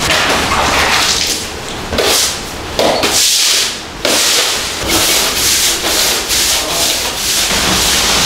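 Stiff scrub brush scrubbing a wet, foamy floor with cleaning agent, a rasping scrape in repeated back-and-forth strokes.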